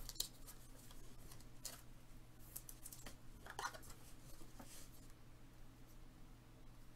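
Faint, scattered clicks and rustles of glossy Prizm trading cards being slid one behind another through the hands, over a steady low hum.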